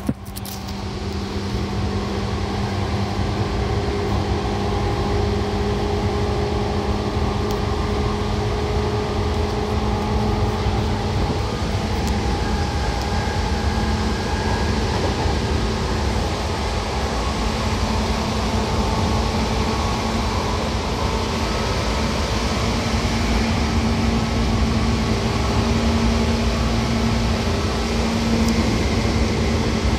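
Seibu 2000 series electric train running between stations, heard from inside the car: a steady rumble of wheels on rail with several faint steady tones from the running gear.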